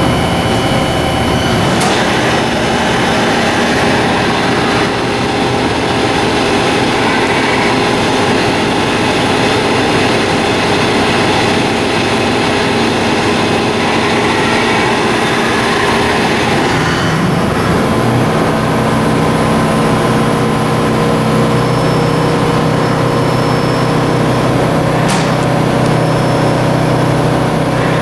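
Motch 219D twin-spindle CNC vertical turret lathe running under power: a loud, steady machine hum and whir made of several held tones. The low tones change about two thirds of the way through, and there are two brief sharp clicks, one near the start and one near the end.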